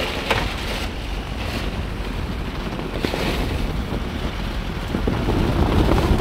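Toyota Hilux pickup driving, a low rumble under heavy wind buffeting on the microphone.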